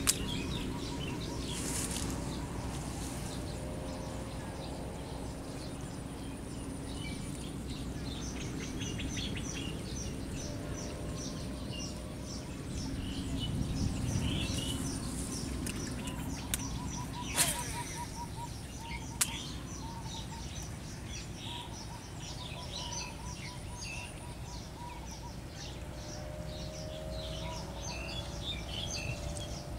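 Small birds chirping and trilling in many short repeated notes over a steady low background noise, with two sharp clicks about two thirds of the way through.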